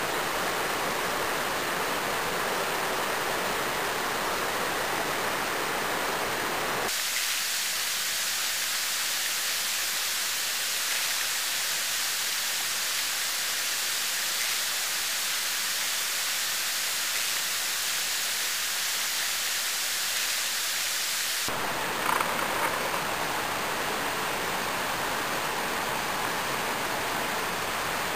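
Steady rush of creek water running into a pool. From about seven seconds in to about twenty-one seconds it turns to a thinner, higher hiss with the low part gone, then returns to the fuller rush.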